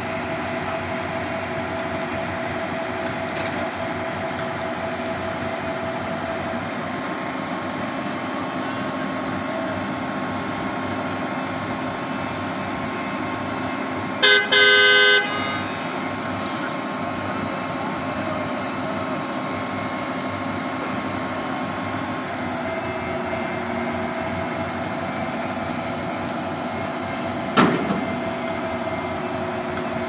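Concrete pump truck's engine and hydraulics running steadily while the boom is moved. About halfway through a vehicle horn gives a short toot and then a longer blast, and a single knock sounds near the end.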